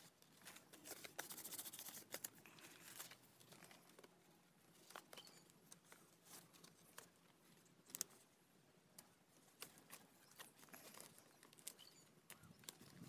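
Faint rustling and crinkling of large fresh leaves being plucked and pinned together with twig slivers into a leaf plate, with scattered small clicks and snaps. The busiest crackling comes about one to three seconds in.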